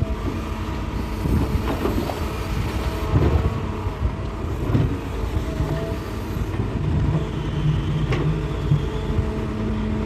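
Hitachi hydraulic excavator's diesel engine running steadily while digging rock, with several sharp knocks and scrapes of the bucket against rock, one near the end.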